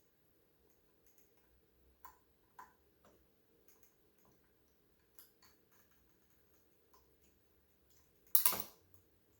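Faint, scattered clicks and ticks of small metal model-crane parts, screws and tools being handled during assembly, with one louder, brief noise about eight and a half seconds in.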